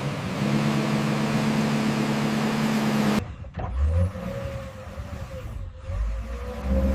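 Wheel loader's diesel engine running steadily. About three seconds in the sound cuts abruptly to a quieter stretch with a low thump, then a deep engine rumble builds again near the end.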